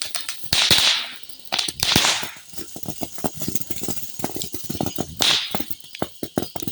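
Small firework going off, with fast, irregular crackling pops and a few short bursts of hiss.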